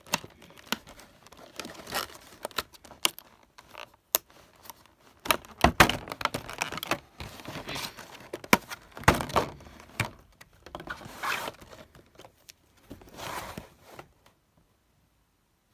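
Clear plastic packaging crinkling and clicking as it is handled and pulled apart, in irregular spells of rustling and sharp snaps. It stops about fourteen seconds in.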